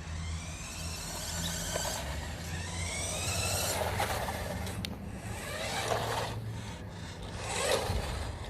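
Toy RC truck's electric motor whining, rising in pitch several times as it speeds up, with rough scraping from its tyres on the ground a few times in the second half.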